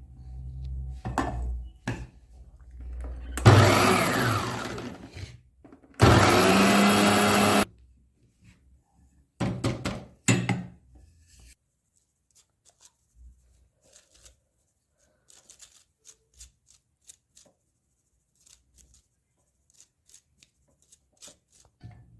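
Electric mixer grinder run in two short bursts of about two seconds each, a few seconds in, regrinding the coarse leftover of a dry mix of almonds, fennel seed and rock sugar. The second burst cuts off sharply. A few knocks follow.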